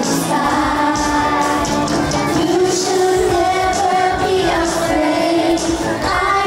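A song: a voice singing a melody with long held notes over instrumental backing.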